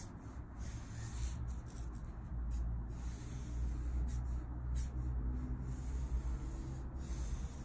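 Copic alcohol marker strokes rubbing across Bristol paper: a series of short, irregular swishes over a low rumble. The marker is running a little dry.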